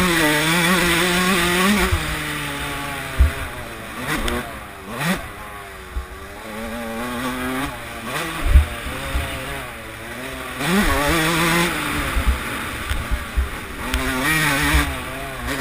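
Suzuki RM144 two-stroke motocross bike's engine under a rider, revving up hard and falling off again several times as he accelerates, changes gear and rolls off the throttle. A few short low thumps cut through it.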